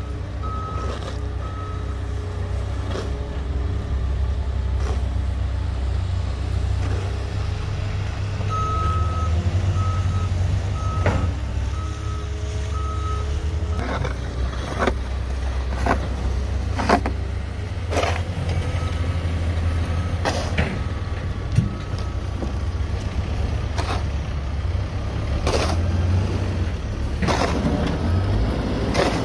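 The diesel engine of a Caterpillar 420F backhoe loader running under load, with a low steady rumble, while a reversing alarm beeps in runs of evenly spaced beeps. From about halfway on, short sharp knocks and scrapes come every second or so, from snow being scraped off the pavement.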